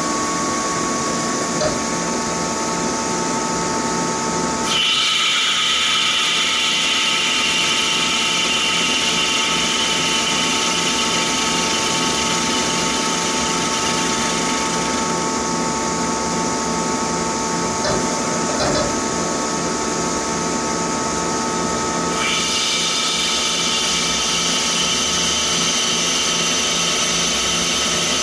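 1970s Mori Seiki NC lathe running, its spindle turning steadily with a constant machine hum while a boring bar cuts the bore of a metal intake spigot. A high-pitched whine comes in about five seconds in, fades around the middle and returns a few seconds before the end.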